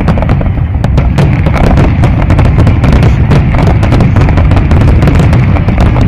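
Fireworks display going off in a dense barrage: many sharp pops and bangs a second over a constant deep rumble, loud throughout.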